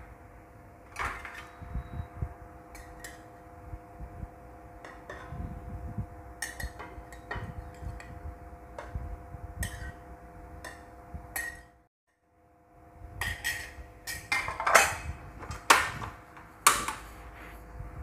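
Metal spoon clinking and scraping against a ceramic plate and a nonstick frying pan as small portions of egg-and-porridge batter are spooned into the pan: irregular sharp clinks, the loudest near the end. A steady low hum runs underneath, dropping out for a moment about twelve seconds in.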